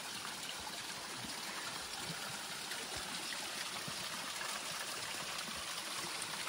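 Spring water trickling steadily down a rock face.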